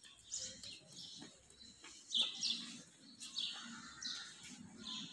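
Birds chirping: a string of short, high calls, each sliding down in pitch, about two a second.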